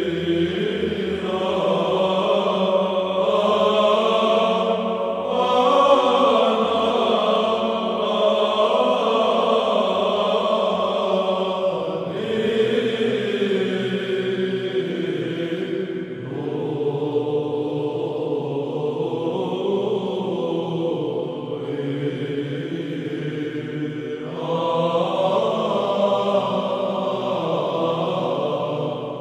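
Slow background music of long held tones, moving to a new chord every several seconds.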